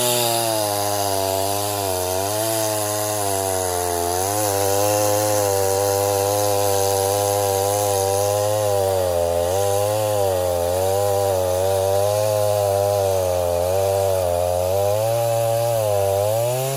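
Echo CS-501P two-stroke chainsaw held at full throttle while cutting through a log. Its pitch sags and recovers again and again as the chain bites, then falls off right at the end.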